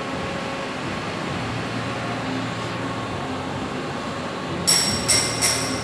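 Steady machinery hum of a workshop, with three short high-pitched electronic bursts close together near the end as the torch height controller's buttons are worked.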